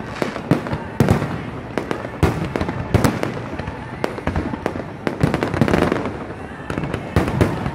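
Aerial fireworks going off: a run of sharp bangs at irregular intervals over continuous crackling.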